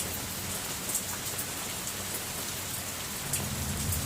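Steady heavy rain falling, with scattered sharp drips hitting a nearby surface. A low rumble of distant thunder rises near the end.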